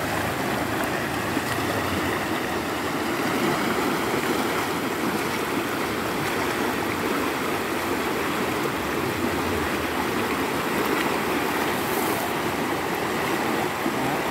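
Steady rush of a fast-flowing, shallow river running over riffles.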